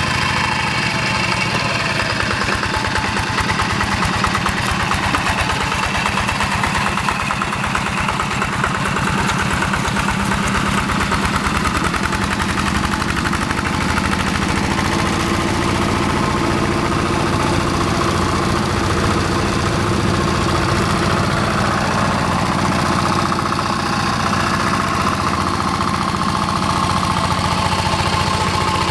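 Single-cylinder diesel engine (Yanmar TF85) of a two-wheel hand tractor running steadily under load as the tractor drags its cage wheels and levelling board through paddy mud.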